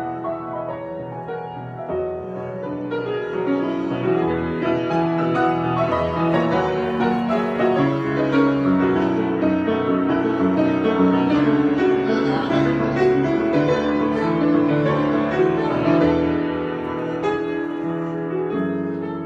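Solo piano playing an improvised piece, dense sustained chords and runs that swell through the middle and ease off near the end.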